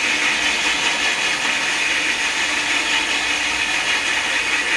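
Cordless drill running at a steady speed, its hole saw grinding a hole through sheet glass wet with water.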